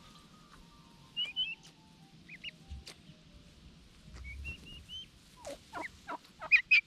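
Poultry calling: scattered short high chirps, then a quickening run of sharply falling calls that grows louder near the end.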